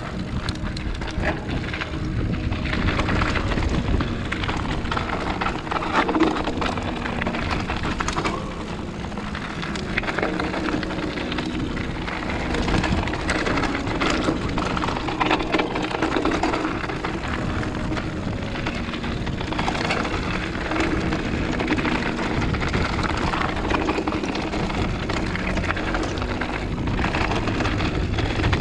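Mountain bike rolling fast down a loose gravel singletrail: tyres crunching over stones and the bike rattling and knocking over bumps, under a steady low rumble of wind on the microphone.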